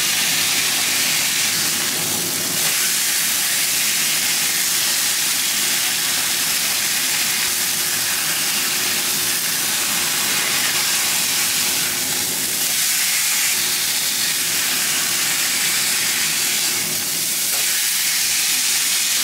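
Beef steak dusted with cornstarch sizzling steadily as it fries in a little oil in a non-stick frying pan.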